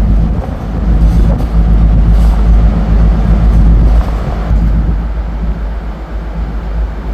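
Loud low rumble on board a ferry under way, swelling and fading unevenly, easing off a little after about four seconds.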